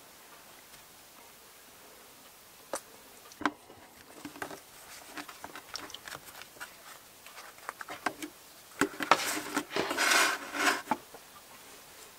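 Light clicks and taps as a wooden spoon puts filling onto flour tortillas and hands handle them. About nine seconds in comes a louder rustling of about two seconds as a tortilla is folded and rolled into a burrito by hand.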